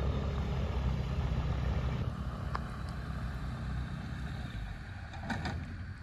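Light floatplane's propeller engine running at low power as it taxis on the water, a steady low drone that drops away about two seconds in.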